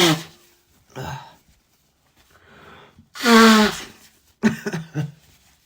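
Allergic sneezing, set off by dogs. The very end of one sneeze at the start, then a loud sneeze with a falling pitch about three seconds in, followed by a few short breaths.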